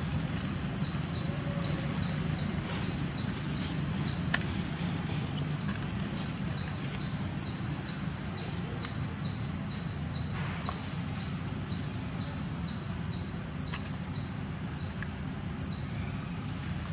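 Outdoor ambience: a short, high chirp repeating evenly about twice a second, over a steady low rumble, with a few faint clicks.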